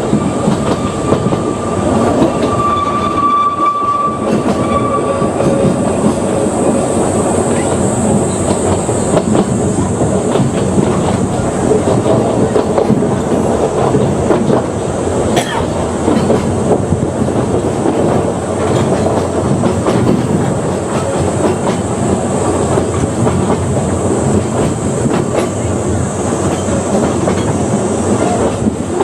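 Ōigawa Railway Ikawa Line train running along the track, with steady wheel rumble and clickety-clack of the rail joints. A thin high wheel squeal sounds for a few seconds near the start, and there is a single sharp clank about halfway through.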